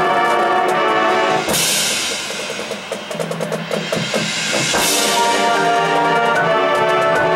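High school marching band playing. A held brass chord gives way to a cymbal crash about a second and a half in, then a drum passage of rapid snare and bass drum strokes. A second crash comes near five seconds, and the full band returns on a sustained brass chord.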